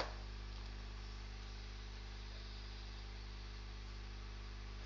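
Steady low electrical hum with a faint hiss, mains hum picked up by the recording setup, with one faint click right at the start.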